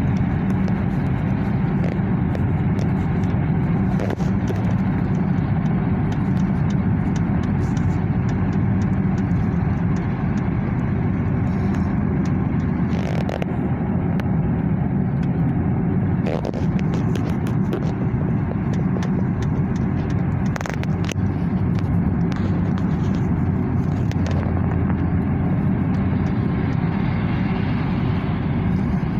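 Steady road and engine noise of a moving car heard from inside the cabin: a continuous low rumble with a few faint clicks.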